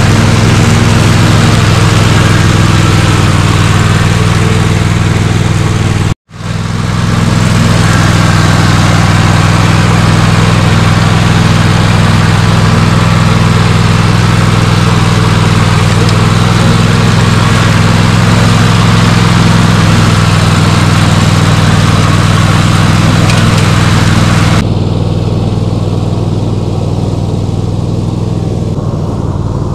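Toro TimeCutter MR 4275 MyRide zero-turn mower running steadily while its blades cut grass: a continuous engine drone with a hiss of blade and clipping noise over it. The sound cuts out for an instant about six seconds in, and near the end it turns quieter and duller as the mower is heard from farther off.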